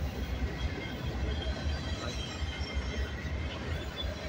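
Double-stack intermodal container train rolling past: a steady rumble of steel wheels on rail, with a few faint, brief high wheel squeals.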